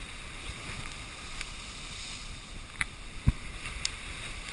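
Heavy storm surf churning and breaking against a rock sea wall, a steady rushing noise with wind on the microphone. A few sharp clicks and one strong low thump about three seconds in break through it.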